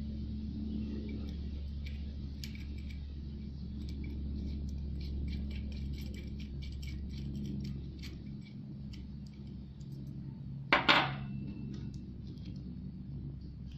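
Light metallic clinking and ticking of small parts being handled, over a steady low hum, with one loud short noise burst about eleven seconds in.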